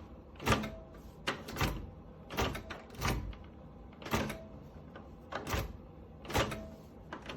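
Microwave oven door push-button and latch clicking again and again, about a dozen sharp clicks at uneven gaps of half a second to a second, as the door is worked at.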